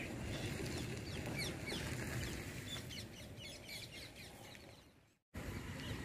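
Small birds chirping: many short, quick downward-sliding chirps over a low steady rumble. The sound fades away and drops out briefly about five seconds in, then comes back.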